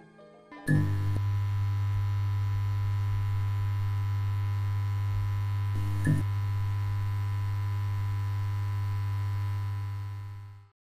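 A steady, loud low electrical hum with a buzzy overtone starts suddenly about a second in. It has a brief crackle near six seconds and fades out at the end.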